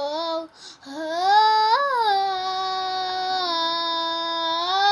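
A child singing with no accompaniment. A short note, then a long held wordless note that swoops up and back down about two seconds in and steps up in pitch near the end.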